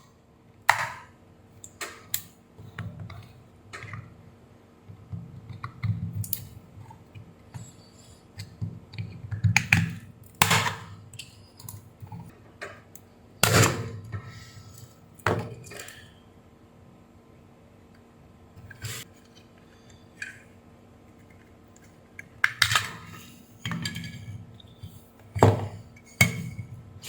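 Irregular clicks, knocks and clatter of tools and hard plastic parts being handled on a workbench while a plastic AC adapter is worked on, over a faint steady hum.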